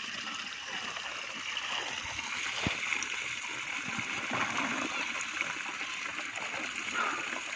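Water trickling steadily down a mud channel into a bamboo basket fish trap, with small splashes and knocks as a plastic bowl scoops small fish out of the trap.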